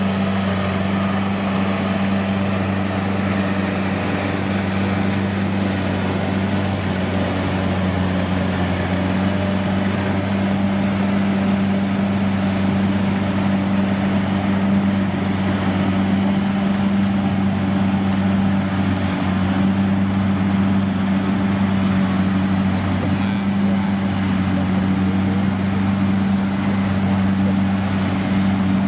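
A farm machine's diesel engine running steadily at constant speed, a low even drone with no revving.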